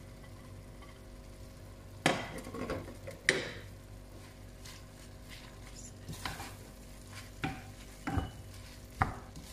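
Chopped spinach being stirred into a granite-coated pan of chana dal with a spatula: several sharp knocks of the utensil against the pan, the loudest two about two seconds in and a second apart, over a light, steady sizzle.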